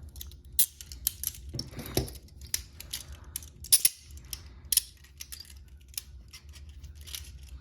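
Steel handcuffs being handled and ratcheted shut: irregular sharp metallic clicks and clinks, with two louder clicks a little before and a little after the middle.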